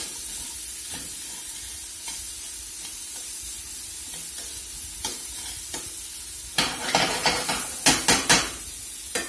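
Sliced onions sizzling in a stainless steel skillet as they sweat down, stirred and scraped with a spatula to loosen the stuck fond from the bottom. From about six and a half seconds in, a run of sharp clicks and scrapes as metal tongs knock against the pan.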